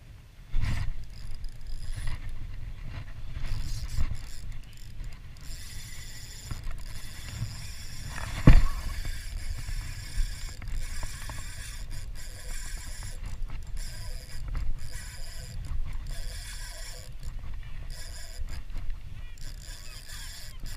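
Spinning reel being cranked on a light fishing rod, its mechanism whirring and clicking, with handling knocks throughout and one sharp loud knock a little over eight seconds in.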